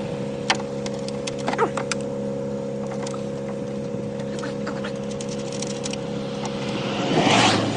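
Steady idling vehicle engine hum with scattered light clicks and knocks of plastic tail-light parts being handled and fitted, and a brief rush of noise near the end.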